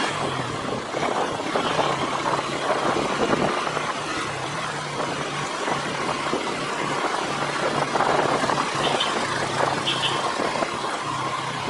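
Motorcycle engine running steadily during a ride, its low note shifting up and down a little, over a constant rushing noise.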